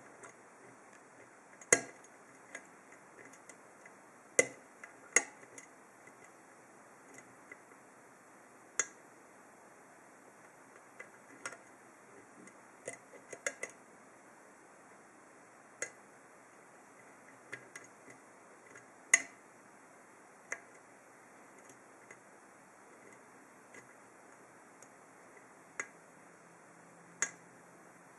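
Metal lock picking: a hook pick and tension wrench working the pin stacks of an ASSA 7-pin oval pin-tumbler cylinder, giving small sharp clicks at irregular intervals, a few much louder than the rest.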